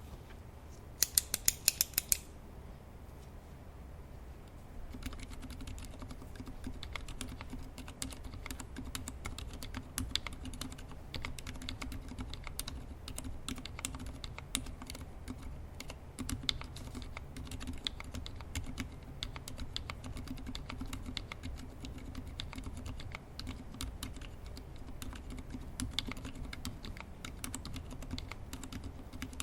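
Typing on a TGR Alice mechanical keyboard with Healios V2 linear switches (62 g, lubed with Tribosys 3204), a brass plate and GMK keycaps. A quick burst of several loud keystrokes comes about a second in, then a pause, then steady fast typing from about five seconds on.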